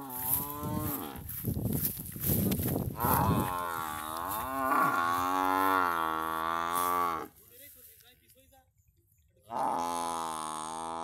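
Domestic water buffalo bellowing. After about three seconds of rough noise, one long low call begins about three seconds in and lasts some four seconds. A brief pause follows, then a second long call starts near the end.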